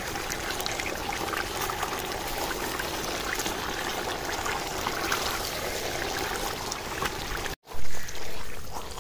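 Steady sizzling and bubbling from a pot of cooked rice in hot oil as powdered palm jaggery is stirred in. After a cut near the end, a brief louder burst as the thick, dark halwa is stirred with a spatula.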